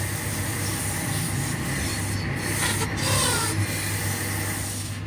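A wooden disc spinning on a lathe being sanded by hand against its face: a steady rubbing hiss over a low hum, briefly louder about three seconds in.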